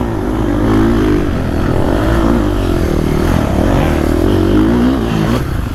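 KTM 450 SX-F single-cylinder four-stroke motocross engine under load in sand, its revs rising and falling over and over as the rider works the throttle through the turns.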